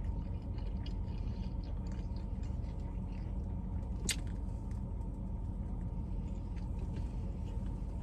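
Soft chewing and small mouth or food clicks over a steady low rumble inside a car, with one sharper click about four seconds in.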